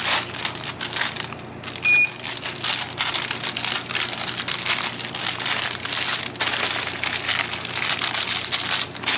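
Plastic snack wrappers crinkling as hands rummage through packaged snacks in a plastic crate. A short electronic beep sounds about two seconds in.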